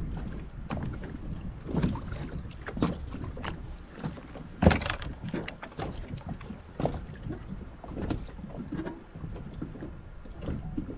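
Wind buffeting the microphone over small waves slapping and knocking against a kayak's hull, in irregular splashes; one louder slap comes about halfway through.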